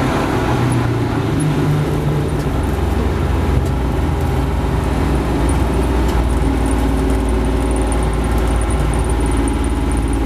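Porsche 550 Spyder's four-cam flat-four engine running. Its pitch shifts over the first couple of seconds, then it settles into a steady low-pitched note.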